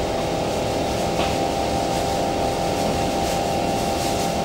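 Cabin sound inside a Kawasaki C151 MRT train: a steady electrical whine with two held tones over an even low rumble and hiss.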